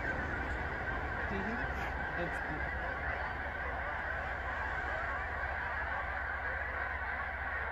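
A large flock of geese honking as it takes off from a pond: a steady, dense din of many overlapping calls, with a steady low rumble underneath.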